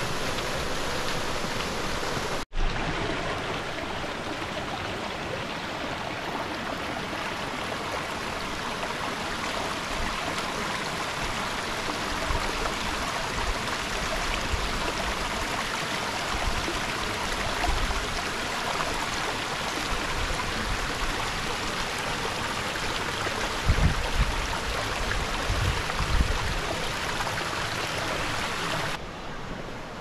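Rocky brook rushing and splashing in a steady, even hiss of water. It cuts out for an instant about two and a half seconds in, a few low thumps come near the end, and it drops a little quieter just before the end.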